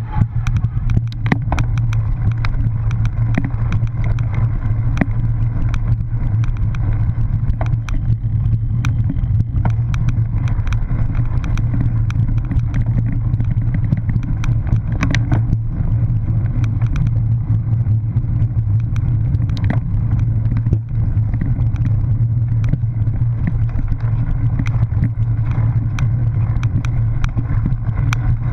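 Steady low rumble of wind and vibration on a cyclocross bike's mounted action camera as it rides over rough grass, with frequent clicks and rattles from the bike jolting over bumps.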